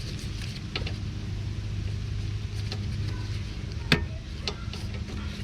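Small clicks and taps of hand tools and parts being handled during work on a car's front suspension, with one sharp click about four seconds in, over a steady low hum.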